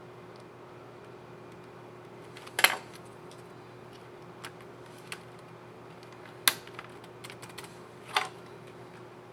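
Plastic clicks of an Asus Vivobook F510U laptop keycap being fitted onto its scissor mechanism and pressed: three sharp loud clicks, the first about two and a half seconds in, with lighter ticks between, over a faint steady hum.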